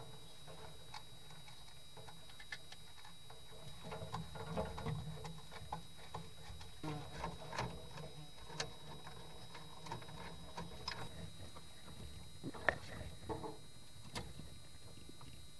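Faint irregular clicks, taps and scraping of hands working on electrical wiring: a screwdriver at a terminal and a plastic cable duct being handled, with one sharper click late on. A faint steady high tone sits underneath.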